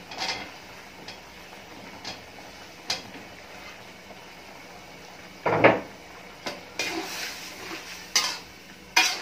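Cubed potatoes sliding off a wooden board into a steel pot of curry, with a metal spatula knocking and scraping against the pot as they go in and are stirred. Scattered knocks, the loudest just past halfway, and a cluster of scrapes and knocks near the end.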